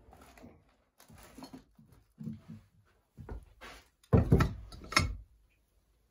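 A series of indoor bumps, knocks and rustles from objects being handled, the loudest a heavy clunk about four seconds in.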